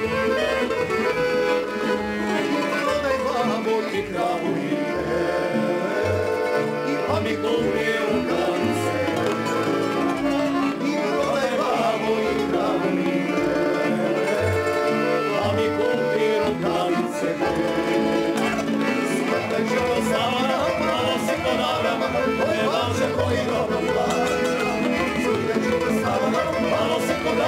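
Tamburica band playing a folk tune: plucked tamburicas over accordion, with a double bass marking the beat.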